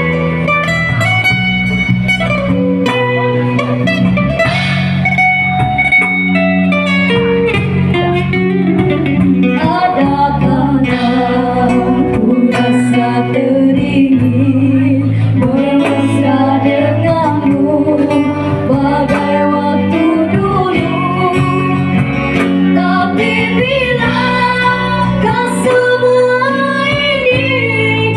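Live cover of a pop ballad: two women singing into microphones over electric keyboard and acoustic guitar accompaniment.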